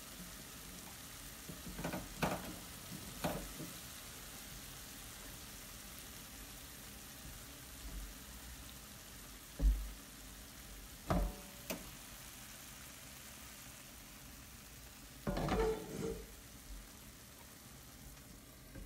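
Eggs, mushrooms and tomatoes frying in a pan with a steady sizzle, broken by a few short knocks and clatters. Near the end a glass lid is lowered onto the pan.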